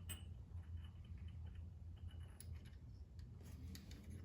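Faint, scattered light clicks of small metal valve-train parts being handled as a rocker arm is fitted back onto its stud, over a steady low hum.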